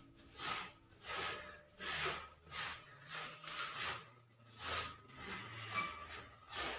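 Faint rasping strokes of something rubbed by hand across a surface, irregular, roughly one or two a second.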